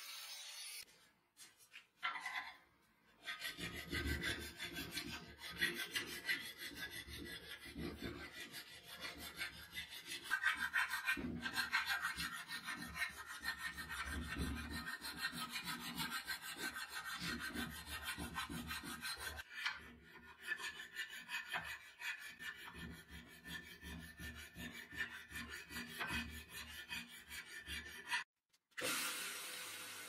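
Hand file worked back and forth on a brass butterfly-knife handle clamped in a steel vise, in repeated rasping strokes about two a second.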